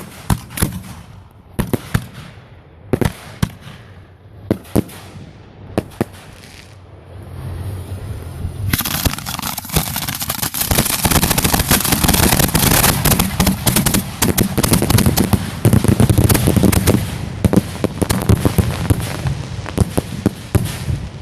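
Fireworks finale: a string of separate sharp bangs for about seven seconds, then from about nine seconds in a dense, continuous barrage of rapid bangs and crackling that thins out near the end.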